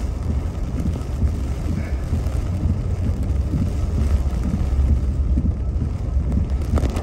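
Car cabin noise while driving slowly through heavy rain: a steady low rumble of the engine and tyres on the wet road.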